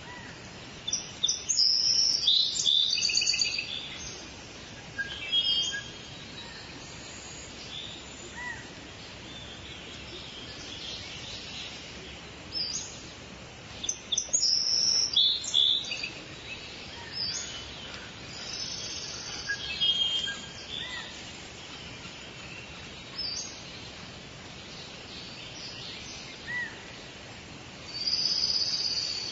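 Songbirds singing and calling in short, high-pitched phrases, in clusters several seconds apart, over a steady background hiss of forest ambience.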